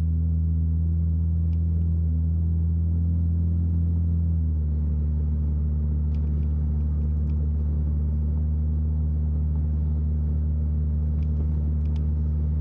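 1964 Chevrolet Corvair Monza's air-cooled flat-six running steadily while driving, heard from inside the cabin as a low, even drone. Its pitch drops slightly about four and a half seconds in.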